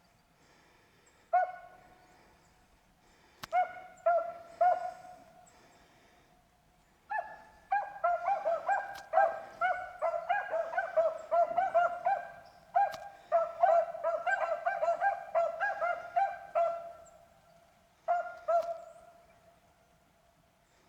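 Beagles baying on a rabbit's trail, giving tongue as they run the track. A few spaced barks build into a fast, overlapping run of bays in the middle, then thin out to a couple of barks near the end.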